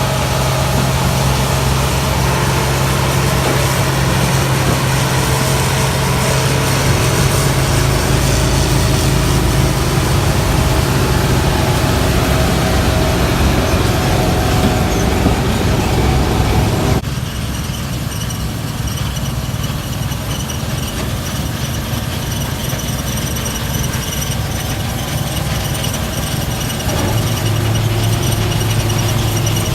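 Harvest machinery running steadily, with a low engine drone and a high-pitched squeal over it. The sound changes abruptly about two-thirds of the way through, then the engine tone returns stronger near the end.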